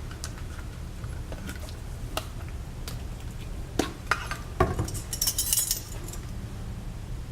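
Handling of a vinegar bottle and the plastic Angry Mama microwave cleaner: scattered light clicks and clinks, two louder knocks, then a short hissing pour of vinegar into the container about five seconds in.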